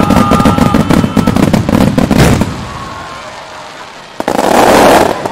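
Opening volley of aerial fireworks: shells burst in rapid close succession for about two and a half seconds. After a short lull, about four seconds in, a loud dense crackling comes from crackle-star shells.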